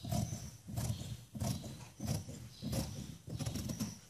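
Fabric scissors snipping down through shirt cloth and fused interfacing, a steady run of cuts about one every two-thirds of a second.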